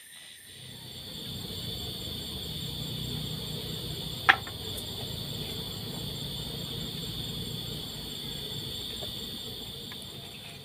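Steady high-pitched buzzing of forest insects, over a low rumble, with one brief sharp squeak about four seconds in.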